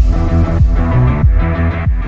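Loud electronic intro music with a heavy bass that pulses about every 0.6 seconds.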